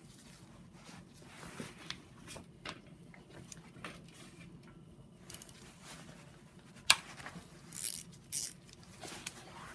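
Hand ratchet clicking as it backs out an aluminium-block engine's oil pump mounting bolt, in scattered soft ticks, then a sharp click and a few bright metallic clinks near the end.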